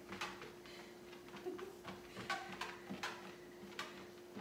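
Treadmill motor humming steadily at its slowest speed, with irregular light clicks and taps as a puppy's paws and claws strike the moving belt.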